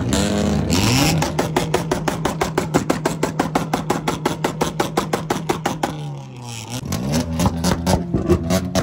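A car engine revved hard and held at high revs with a rapid, even stutter. The revs climb in the first second, drop briefly about six seconds in, then climb again.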